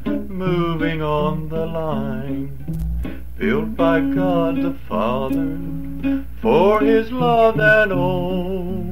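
A man singing with an acoustic guitar on a 1959 home tape recording played from an RCA Sound Tape Cartridge, with pitch glides and vibrato in the voice and a steady low hum underneath.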